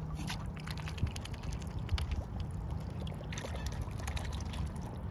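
Mute swans feeding in shallow water: small splashes and trickling as they dip their bills in and lift them out, over a steady low rumble.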